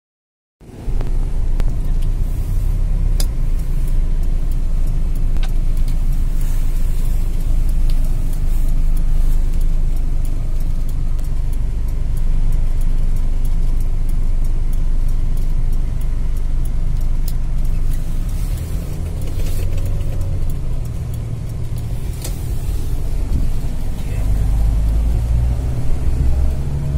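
Hyundai Galloper SUV driving in traffic, heard from inside the cabin: a steady low engine and road rumble, with a few sharp clicks, and the rumble grows heavier near the end.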